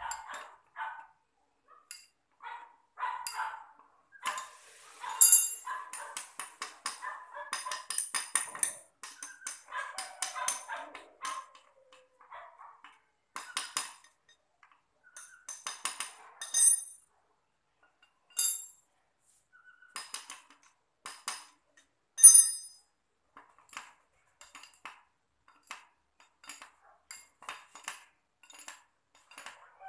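Hand tools clinking and tapping on the metal housing of a motor unit as it is worked on: a run of irregular short metallic clicks and knocks, some ringing brightly, the sharpest about 22 seconds in.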